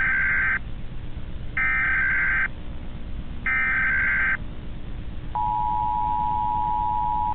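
Emergency Alert System broadcast tones: three short bursts of the digital header's buzzy data screech, about a second apart, then the steady two-note attention signal starting about two seconds after the last burst.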